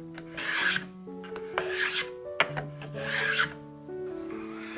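Hand-sanding a wooden strip with a sanding block: four rasping strokes about a second apart, the last one softer, over soft background music.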